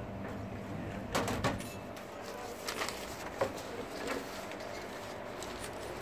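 Handling of a wired wooden hive frame and a stack of beeswax comb foundation sheets with paper between them: light rustling and a few short taps and knocks, the clearest about a second in. A faint steady low hum lies underneath.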